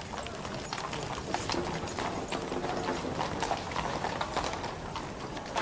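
Street ambience of irregular clip-clop steps knocking on hard ground, with a faint murmur of distant voices in the middle.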